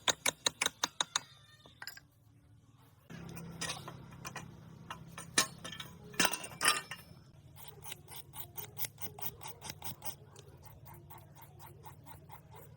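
Rapid, ratchet-like mechanical clicking in runs. A low steady hum comes in about three seconds in, and a regular clicking at about four to five a second follows later.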